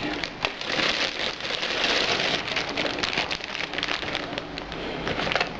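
Dense crackling and rustling of packaging being handled close to the microphone, a continuous stream of small crinkly clicks.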